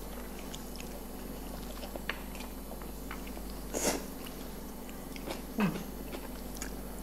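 People eating: quiet chewing with light clicks of a metal spoon against a bowl and a wooden serving board, and a short scrape a little before four seconds. Just before six seconds comes a brief low hum from a voice that falls in pitch.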